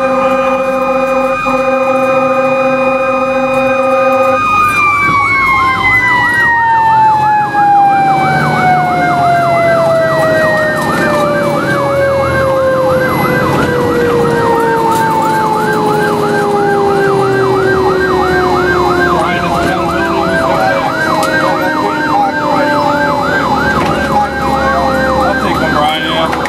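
Fire engine sirens on a responding fire truck. One siren holds a steady high tone for about four seconds, then winds slowly down in pitch. Meanwhile a second siren yelps rapidly up and down, with the truck's engine rumbling underneath.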